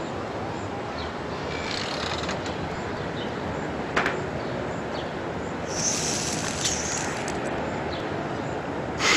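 A dog coughing and hacking in short bouts, about two seconds in and again about six seconds in, over a steady background hiss; a sharp click about four seconds in.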